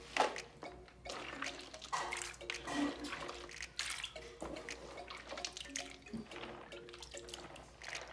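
Hands rubbing and squeezing açaí berries in a tub of water to work the pulp off by hand: irregular splashing and sloshing with small clicks.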